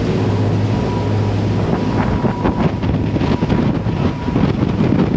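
Marine diesel engines running steadily underway, a low, even drone. About two seconds in it gives way to a rougher, uneven rushing noise with crackles.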